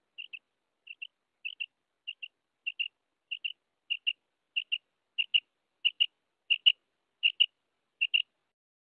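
Common quail calling: a steady series of short, high double notes, about three every two seconds, growing louder over the first several seconds.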